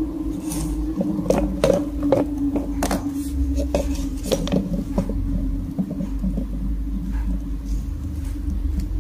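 Kittens pawing at plastic toys and a small cardboard box on a tiled floor: a run of sharp taps and clatters between about one and five seconds in, then scattered lighter taps, over a steady low hum.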